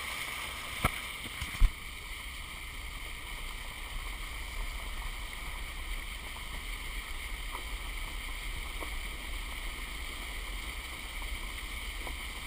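Truck driving through floodwater over a road: steady wash and splashing of water from the tyres over a low engine rumble. There are two sharp knocks about a second and a second and a half in.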